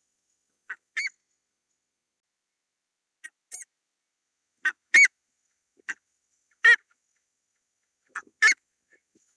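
Buff-necked ibis calling: short, loud calls at uneven intervals, several given as quick doubled notes, the loudest about five and seven seconds in.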